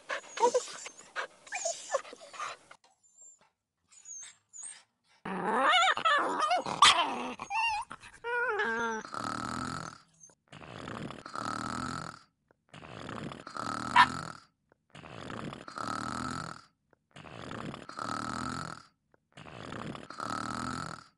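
Dog sound effects: quick sniffing at first, then about five seconds in a dog growls and whines in a wavering pitch for about three seconds. After that comes slow, even snoring, one breath about every two seconds.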